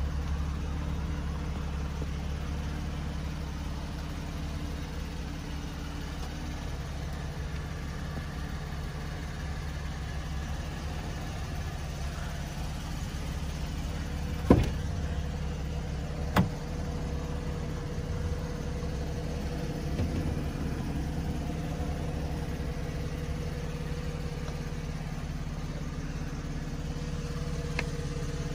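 Car engine idling steadily. About halfway through come two sharp clicks a couple of seconds apart, typical of a car door handle and latch being opened.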